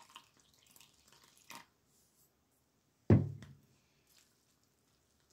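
Water poured in a thin stream into a glass bowl of flour, with a light knock about a second and a half in. About three seconds in comes a single loud thump that dies away quickly, the loudest sound here.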